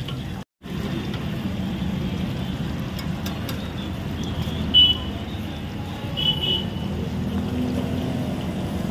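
Steady low rumble of roadside traffic, with two short high ringing clinks about five and six seconds in, from a metal ladle against an aluminium soup pot. The sound drops out for a moment just after the start.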